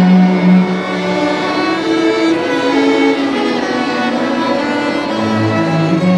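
A high school string orchestra playing a classical piece, with cellos and violins bowing sustained notes. A lower note comes in near the end.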